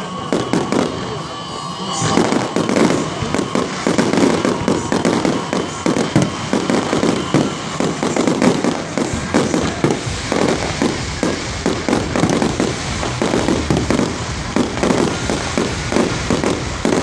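Fireworks finale: a dense, rapid barrage of aerial shells bursting and crackling, the bangs coming thick and fast from about two seconds in.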